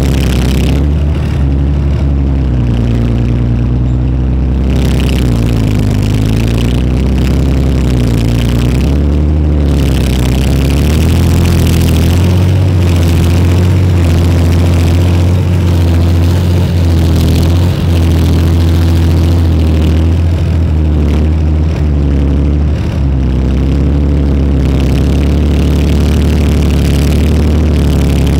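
BVP-1 (BMP-1) infantry fighting vehicle's UTD-20 V6 diesel engine running loud and close beneath the deck while the vehicle drives, its pitch rising and falling as the engine speed changes.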